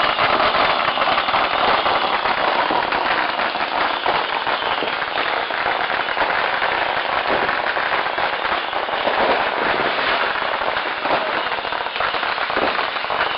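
Firecrackers going off in a dense, continuous crackle, countless small bangs running together without a break.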